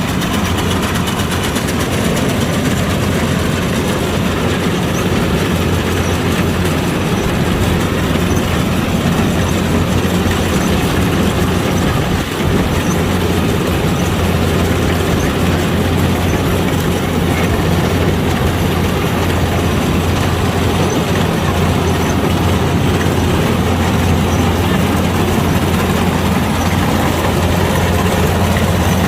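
Kubota DC-105X combine harvester running steadily: its diesel engine and threshing machinery make a constant low hum under a dense mechanical din while harvesting rice.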